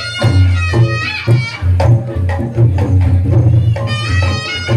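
Reog Ponorogo gamelan accompaniment: kendang drums beating a lively rhythm with a slompret shawm playing a bending melody over it.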